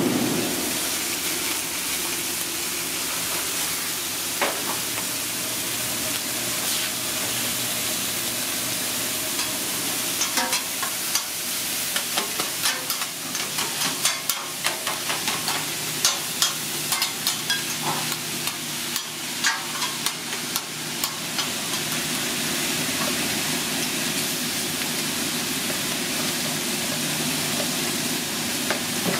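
Shaved ribeye sizzling steadily on a hot flat-top griddle, with sharp clicks and scrapes of metal spatulas working the meat, thickest through the middle stretch.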